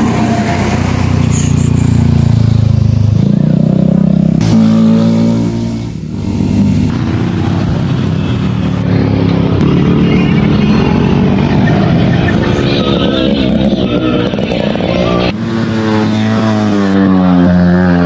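Motorcycles and scooters passing one after another, engines accelerating and changing pitch as they rev and shift. The engine note switches abruptly several times as one pass gives way to the next.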